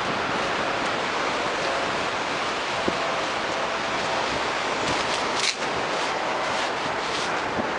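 Steady rush of small waves washing among rocks and coarse sand at the water's edge, mixed with wind on the microphone, with a brief louder rush about five and a half seconds in.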